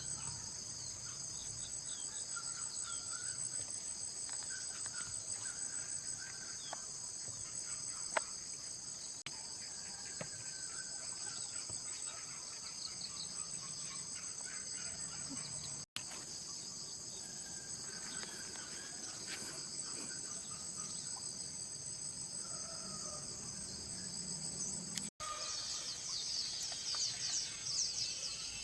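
Steady, high-pitched chorus of insects singing, with a few faint chirps and a light click about eight seconds in; the sound drops out for an instant twice.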